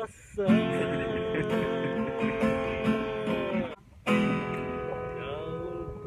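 Acoustic guitar chords strummed and left ringing, with a short break just under four seconds in before the playing resumes.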